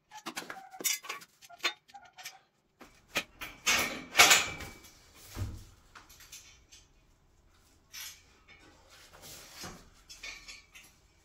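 Steel tubes and bolt hardware of a free-standing pull-up bar frame being handled during assembly. There are a run of small metallic clicks and taps, then a louder scraping and rustling around four seconds in and a low thud just after. Softer handling noises follow near the end.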